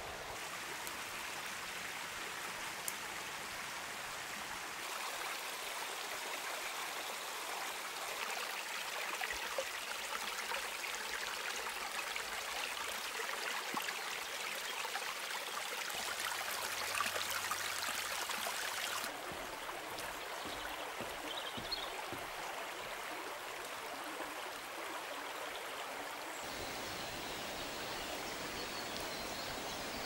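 Shallow forest brook trickling and burbling over stones, a steady rushing hiss of water; its tone shifts abruptly several times.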